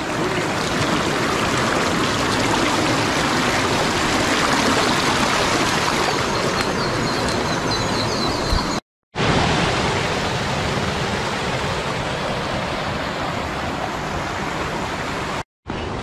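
Rocky stream rushing over and between boulders: a steady, loud rush of water. It breaks off twice, briefly, about nine seconds in and near the end.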